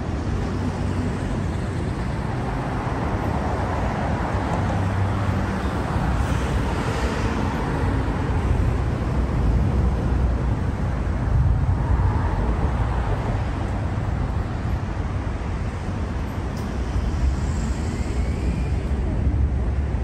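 Road traffic on a multi-lane city street: cars driving past close by, a steady rush of tyres and engines that swells a couple of times as vehicles go by.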